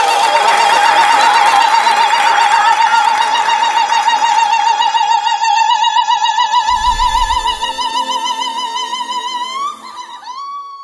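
A high soprano voice holding one long note with wide, even vibrato, the final note of an a cappella choral song. Other voices and noise sound underneath during the first few seconds; near the end the note bends upward and fades away.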